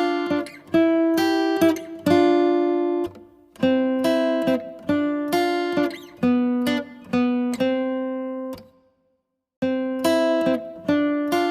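Background music: a plucked string instrument playing a melody of separate notes, each struck sharply and dying away. It breaks off for about a second near nine seconds in, then starts again.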